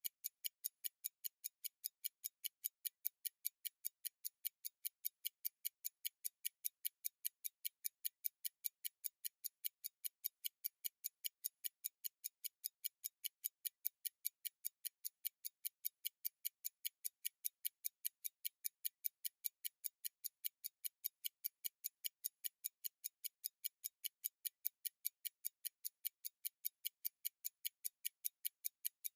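Zenith Calibre 19 N.V.S.I. pocket watch movement ticking: sharp, even ticks of its Swiss lever escapement at about five a second, its 18,000 vibrations-per-hour beat.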